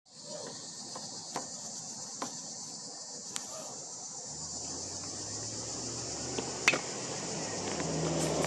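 Steady, high-pitched chorus of crickets or similar insects, with a few sharp clicks scattered through it. A low, steady hum joins about four seconds in.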